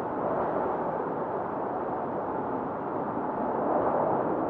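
Snowfall ambience: a steady, muffled rushing noise that swells a little near the end.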